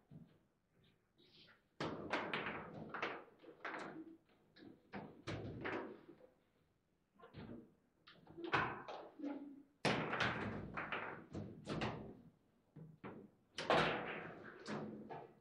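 Table football play: the ball cracking off the plastic players and the table's walls, and the steel rods clacking as they are slid and slammed, in an irregular run of sharp knocks and slams. The loudest come in flurries about ten seconds in and again near the end.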